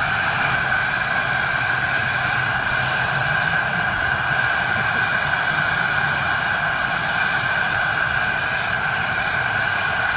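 Propane camp stove burner running steadily at full flame under a pot of boiling noodles, an even, unchanging rushing noise.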